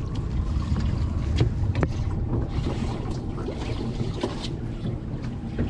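Steady wind rumble on the microphone aboard a boat at sea, with a few sharp clicks and knocks.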